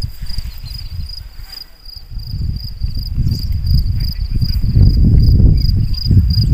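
Cricket chirping steadily, an even, high pulsed chirp two or three times a second, over a loud low rumble on the microphone that swells to its loudest about five seconds in.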